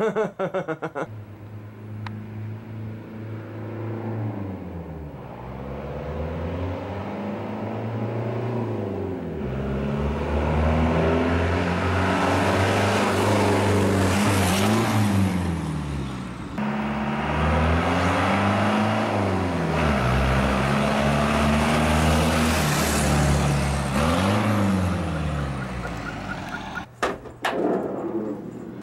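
Cummins diesel-swapped Ford F-150 pickup driving by, its engine note rising and falling several times as it pulls through the gears. Tyre and road noise swells with it, loudest in the middle, and fades near the end.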